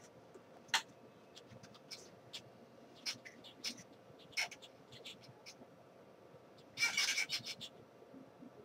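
Eyeshadow blending brush working over the eyelid: faint scattered scratchy clicks and brushing strokes, with a denser scratchy rustle of quick strokes about seven seconds in.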